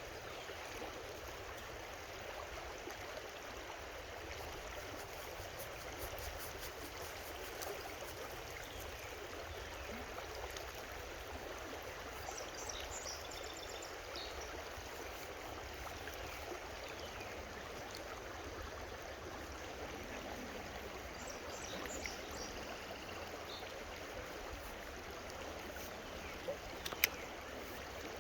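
Creek water running steadily over a shallow stream bed, an even rushing. Faint high chirps twice in the middle, and a single sharp click near the end.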